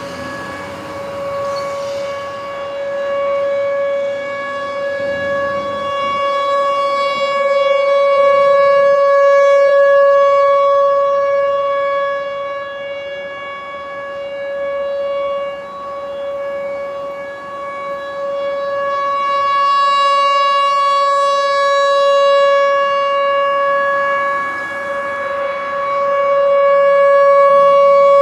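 Outdoor tornado warning siren sounding a steady, unchanging tone during a siren test. Its loudness swells and fades in slow waves, loudest about a third of the way in and again near the end.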